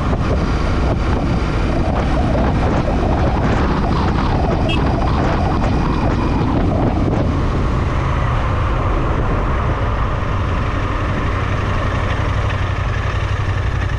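Royal Enfield Interceptor 650's parallel-twin engine running at road speed through its twin exhausts, with wind over the microphone. The engine note changes and becomes steadier about halfway through.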